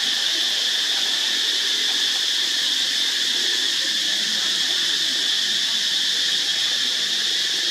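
A steady, unbroken high-pitched insect chorus drone with no rises or breaks.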